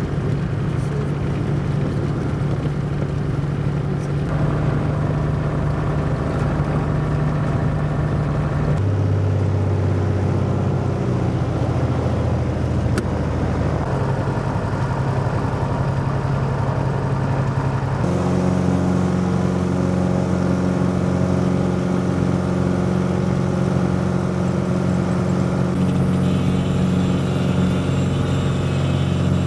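Rockwell Commander 114's six-cylinder piston engine and propeller running steadily, heard from inside the cabin. The drone's pitch jumps abruptly a few times.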